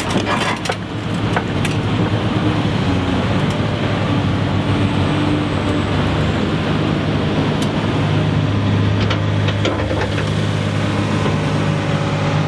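Diesel engine of a large Komatsu hydraulic excavator running steadily under load, with crushed stone rattling out of the bucket in the first second or so and a few scattered knocks later.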